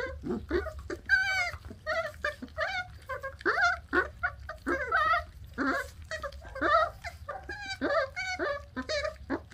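A litter of puppies feeding on raw meat on the bone, chewing and tearing at it, with frequent short whimpers and grunts, several a second.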